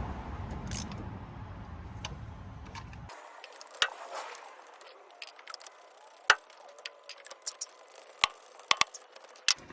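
Low steady rumble that cuts off abruptly about three seconds in, then a few sharp, separate metallic clicks and ticks of hand tools and engine parts being handled during a spark plug change.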